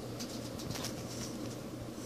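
Faint, brief scratchy rustles, a few times over a steady low hum, as a small terrier paws and sniffs at a desk beside a rat cage.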